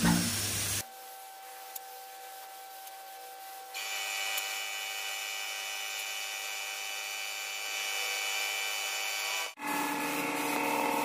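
Background music cuts off about a second in. After that comes the steady hiss of an air spray gun spraying paint, over the humming drone of an air compressor. The sound jumps abruptly in tone twice.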